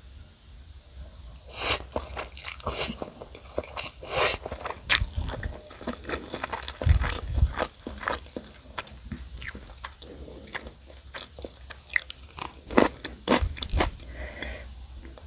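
Bites and chewing of crispy Goobne Gochu Basak fried chicken: a run of sharp, crackly crunches starts about a second and a half in and goes on until near the end.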